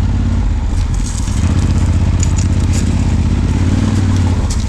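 Yamaha Ténéré 700's parallel-twin engine pulling steadily at low revs in first gear over soft, stony ground, with short crackles of stones and gravel under the tyres now and then.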